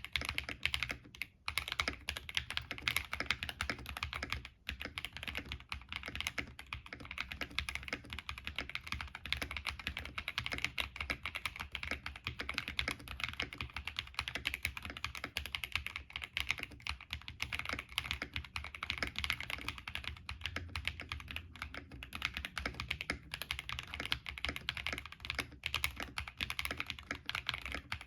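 Fast continuous typing on an Epomaker TH66 mechanical keyboard with stock Leobog Greywood V3 linear switches and PBT keycaps, the board tape-modded and dampened, giving dense keystroke clacks with a few brief pauses, about a second in and near five seconds.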